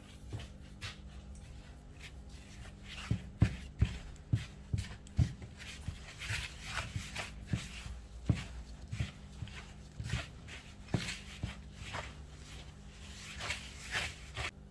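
A gloved hand rubbing oil into flour in a plastic bowl: the plastic glove rustles and scrunches against the flour, with irregular soft knocks of hand and bowl.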